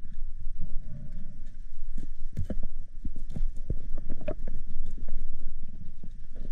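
Irregular muffled knocks and clicks heard underwater, several a second over a low rumble, as a speared pollack is handled on the spear shaft and dispatched with a knife.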